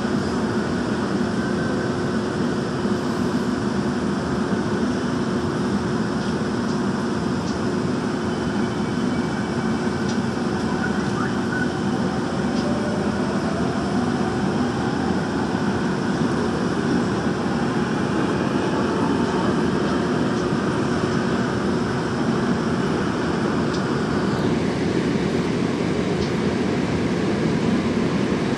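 Daejeon Metro Line 1 subway train running through a tunnel, heard from inside the car: a steady rumble of wheels and running gear on the rails. A faint whine rises in pitch partway through.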